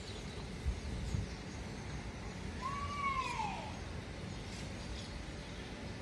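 A single drawn-out animal call about three seconds in, rising slightly and then falling in pitch, over steady outdoor background noise.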